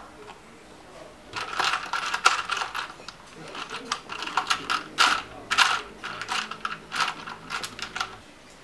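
Small plastic kit parts clicking and rattling as fingers rummage through the compartments of a clear plastic organizer box. The clicks come in a dense, irregular run that starts about a second in.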